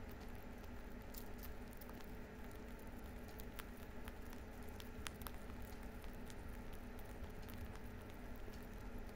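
Lop-eared rabbits chewing dry hay: a quick, crisp crunching made of many scattered sharp clicks, over a faint steady low hum.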